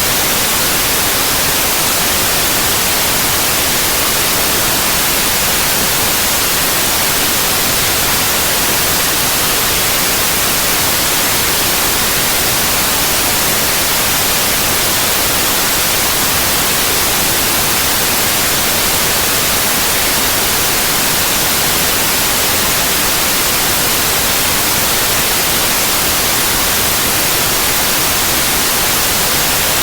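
Steady electronic white noise: an even, unbroken hiss across the whole range, brightest in the treble.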